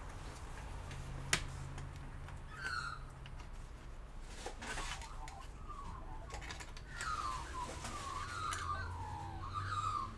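Bird calls: short falling chirps, a few about two and a half seconds in and a longer run of them in the last three seconds, over a faint low hum. A single sharp click comes about a second in.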